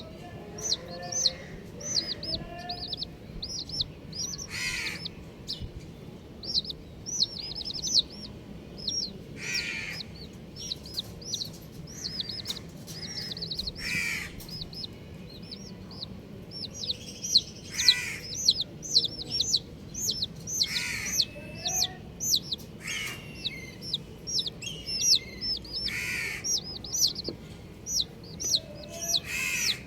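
A group of baby chicks peeping: many short, high chirps repeated rapidly and continuously, with a louder, harsher call every few seconds.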